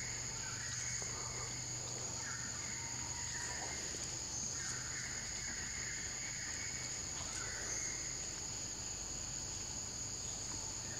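Steady high-pitched insect chorus, with fainter, shorter buzzes coming and going beneath it.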